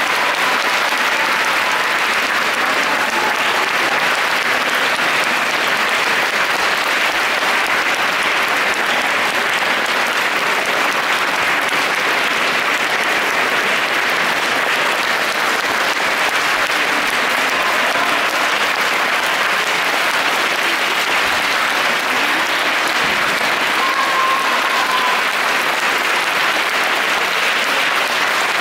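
Audience applauding steadily, with no break in the clapping.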